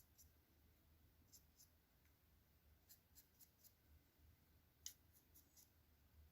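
Very faint, short scratching strokes of a dry brush flicking across a miniature's raised detail, coming in small clusters, the sharpest about five seconds in, over a low room hum.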